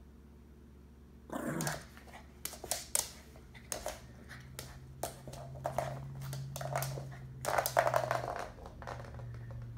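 A Malshi (Maltese–Shih Tzu) dog rolls and wriggles on a bath towel after a bath: the towel rustles and scuffs, and paws scrabble on the wooden floor. From about a third of the way in there is a low, steady playful growl that breaks off briefly near the end.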